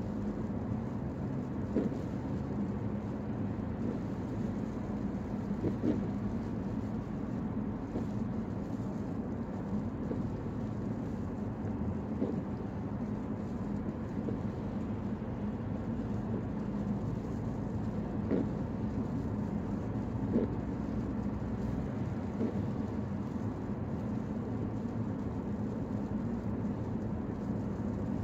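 Steady road noise inside a moving car's cabin at highway speed: tyres on wet pavement and the engine's hum, with a few light knocks spaced several seconds apart.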